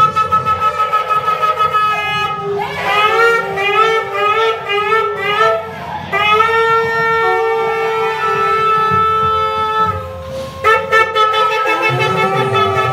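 Several shofars blown together, their notes overlapping at different pitches. It opens with quick stuttering blasts, moves into rising, wavering calls and a long held note, breaks off briefly about ten seconds in, then resumes with quick blasts.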